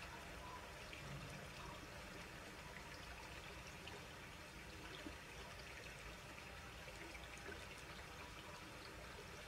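Faint, steady trickle of a small woodland stream, with a few faint ticks.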